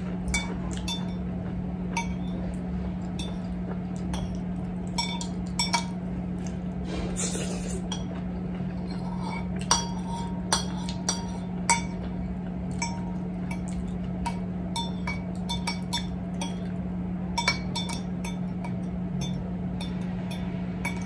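Metal fork and spoon clinking and scraping against a china plate while eating, in irregular short clinks that each ring briefly, a few louder ones near the middle. A steady low hum runs underneath.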